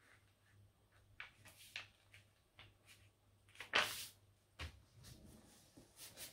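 Sheet of coloured paper rustling and creasing as it is folded and smoothed flat by hand on a wooden table: faint scattered rustles, a louder swish a little before the middle and a soft low knock just after.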